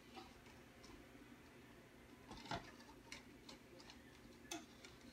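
Faint clicks and taps of plastic cups being set down and pushed together as they are re-racked into a triangle on a carpeted floor, a few sharper clicks standing out about two and a half, three and four and a half seconds in.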